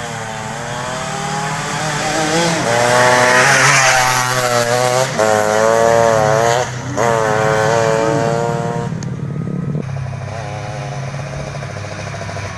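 Underbone motorcycle engine revving: its pitch climbs and wavers through several rev swells, loudest in the middle, then drops back to a lower, steadier running speed about ten seconds in.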